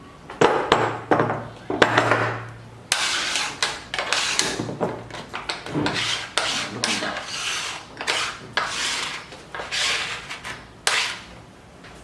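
A few sharp knocks, then repeated scraping strokes on wood, about one a second, like a piece being rubbed or rasped to fit.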